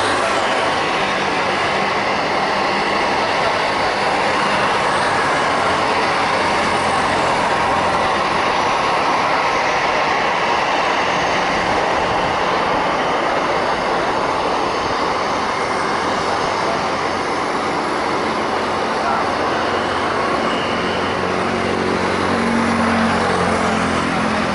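Steady, loud engine roar with a low hum underneath, holding level without rising or falling.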